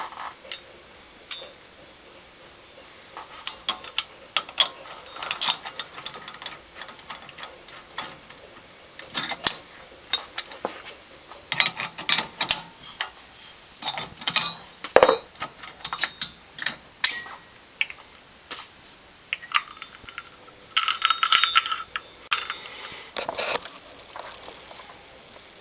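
Metal clinks and taps of a spanner on the hub nut of an MGB's front stub axle, in scattered bursts with short metallic rings.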